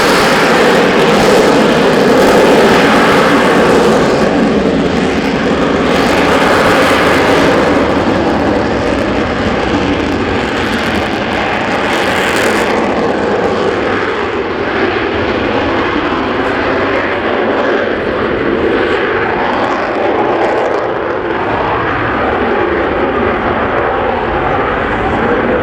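Lockheed Martin F-35B Lightning II's Pratt & Whitney F135 jet engine, loud and continuous. Its sharpest high hiss thins out about halfway through, leaving a duller, steady rumble.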